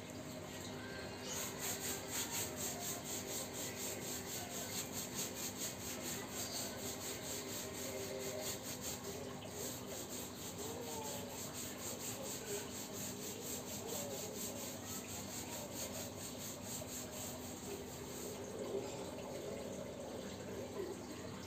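Hand brush scrubbing a fabric sofa's upholstery with liquid detergent: quick, even back-and-forth strokes, easing off near the end.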